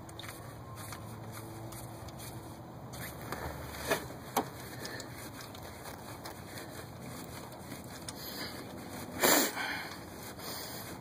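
Quiet hand work on the engine: a couple of light clicks about four seconds in, and a short, loud rush of noise about nine seconds in.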